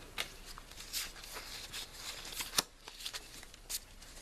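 Stack of Pokémon trading cards being handled: a quiet run of short sliding scrapes and light clicks as cards are shuffled through by hand, with one sharper click about two and a half seconds in.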